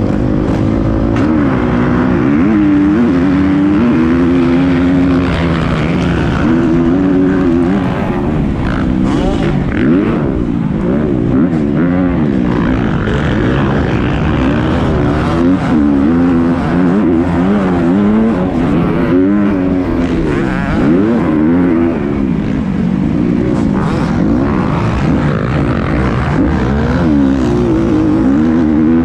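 Motocross bike engine at full race pace, heard close up from the bike. Its pitch climbs and drops again and again as it is revved out and shifted, from the start gate through the turns.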